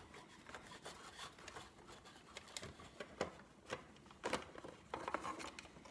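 Faint scattered plastic clicks and scraping as a small motor is worked loose from the Big Mouth Billy Bass's plastic mechanism, with about half a dozen sharp ticks.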